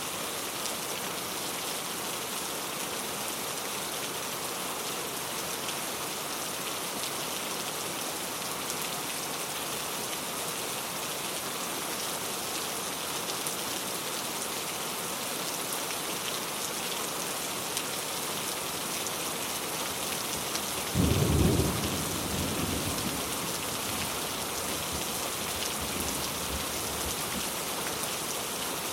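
Heavy rain falling, a dense, steady hiss. About two-thirds of the way through, a sudden clap of thunder with a low rumble that dies away over a few seconds.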